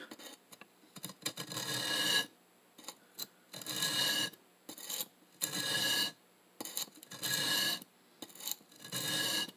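Steel knife blade dragged in strokes across a DMT DuoSharp diamond sharpening plate: five scraping strokes about two seconds apart, with small clicks between. The blade is being ground at the back of its edge to repair the edge profile.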